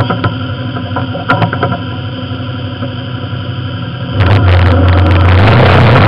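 A vehicle engine running at a low steady speed with a couple of short knocks, then revved up hard about four seconds in and held loud.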